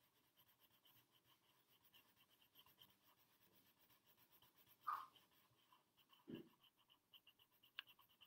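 Faint scratching of a pencil shading on paper in quick, short strokes, with a couple of soft knocks about five and six seconds in.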